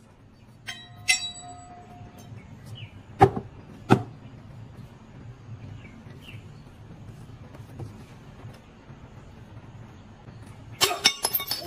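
Metal sword blade clinking with a brief ringing about a second in, then two sharp knocks a little over half a second apart around three to four seconds in, and a quick run of clicks and clatter near the end.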